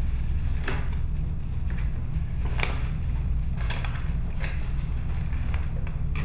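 Paper shopping bag and cardboard rustling and crinkling several times as kittens paw and climb into it, over a steady low rumble.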